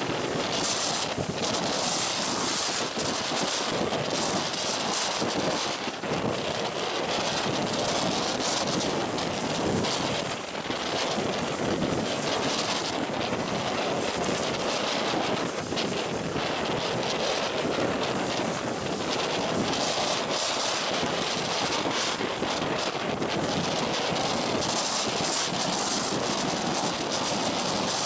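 Storm wind and heavy sea: a steady roar of wind and breaking waves against a harbour breakwater, with gusts buffeting the microphone and bringing surges of hiss now and then.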